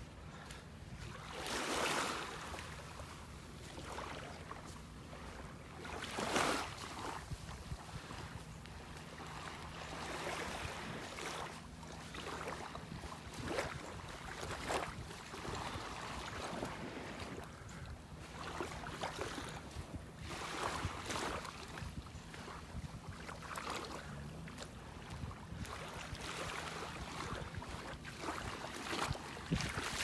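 Small waves lapping at the water's edge, with wind on the microphone; louder washes come about two and six seconds in, over a faint steady low hum.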